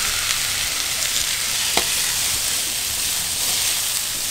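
Diced tomatoes and zucchini sizzling in hot olive oil in a wide steel paella pan, a steady hiss, with one sharp clink of the spatula against the pan a little under two seconds in.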